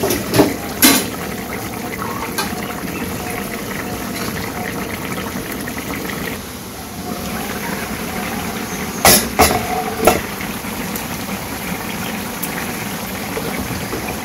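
Fish curry boiling hard in a wok on a gas stove: a steady bubbling with a few sharp pops, twice near the start and three times about nine to ten seconds in.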